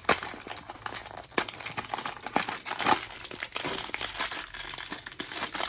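Crinkling and tearing of a blind-box figure's packaging being opened by hand, a dense run of crackles and small snaps.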